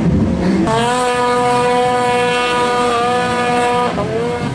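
A small vehicle engine revving hard, held at high, nearly steady revs for about three seconds. The revs dip briefly near the end and then rise again.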